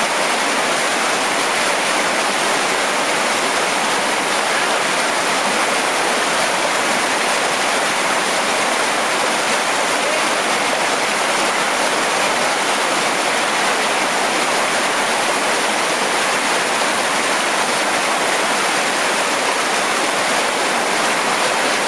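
Fast river water rushing steadily over rocky riffles and small rapids.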